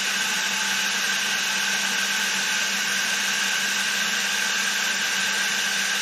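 Milling machine running steadily with an edge finder turning in its spindle, as the table is fed in toward the work: an even mechanical hum with a constant high whine.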